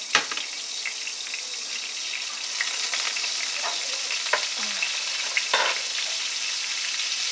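Butter sizzling as it melts in hot vegetable shortening in a pan: a steady hiss that grows a little louder partway through, with a few light knocks.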